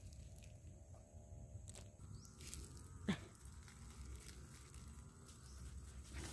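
Quiet rustling and a few small clicks of cucumber vines and leaves being handled as a cucumber is picked off the vine. About three seconds in comes one short, sharp sound that sweeps downward in pitch, the loudest moment.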